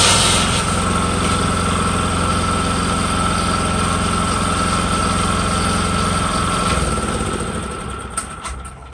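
Engine-driven dredge pump running steadily with a high whine. It shuts off about seven seconds in and dies away near the end.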